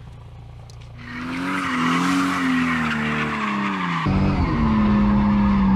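Toyota Altezza drift car sliding sideways: the engine revs with a wavering note while the tyres squeal and hiss across the asphalt. The sound swells in about a second in and changes abruptly around four seconds in, where the engine note turns heavier and steadier.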